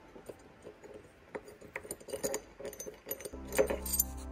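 Light metallic clinks as a long stainless bolt is turned by hand into a stainless steel stanchion base, over background music.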